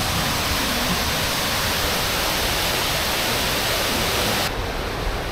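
River rapids and a low waterfall rushing: a loud, even hiss of white water. About four and a half seconds in it suddenly drops to a softer, duller rush.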